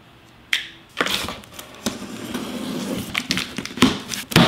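A small CRKT knife drawn from its plastic sheath, then slitting the packing tape along a cardboard box's seam: a continuous scratchy scraping with many sharp clicks and knocks, starting about a second in.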